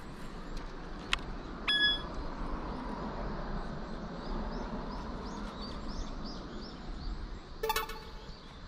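Outdoor ambience with a steady low background and small birds chirping. A short high beep sounds about two seconds in, and a louder, harsher call comes near the end.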